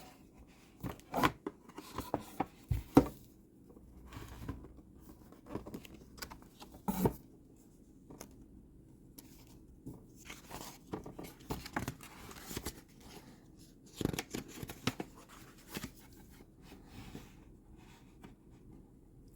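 Paper rustling, scraping and clicking at irregular intervals, with louder bursts every few seconds: a picture book's pages being handled and turned.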